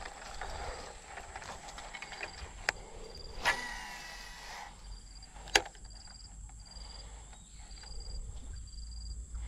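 Shimano SLX DC baitcasting reel on a cast: a click as the spool is freed about three and a half seconds in, then about a second of the spool's whine, with the DC brake's whistle as line pays out. There are single sharp clicks before and after, and a faint chirping insect repeating about once a second in the background.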